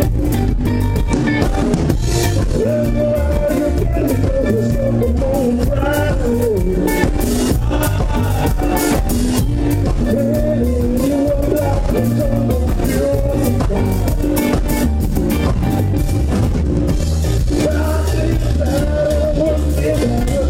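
A live band playing: a man singing lead over electric guitars and a drum kit, with a steady beat.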